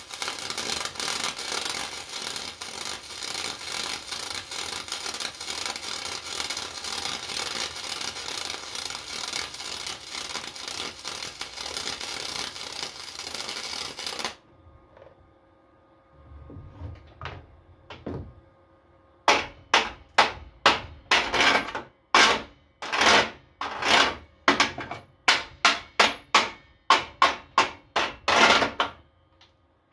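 Flux-core wire welder arc crackling steadily through a weld bead of about fourteen seconds, then cutting off. After a short pause comes a quick run of about twenty short, sharp strokes.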